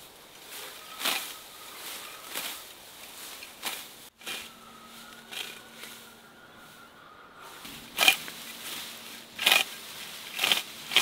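Hand shears cutting through clumps of grass and herbs: about seven sharp snips at uneven gaps of a second or so, the loudest near the end, with a faint steady hum behind them from about four seconds in.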